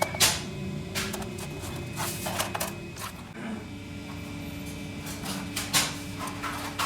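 Factory workshop sounds: scattered sharp metal knocks and clicks from handling and working stove parts, over a steady machine hum.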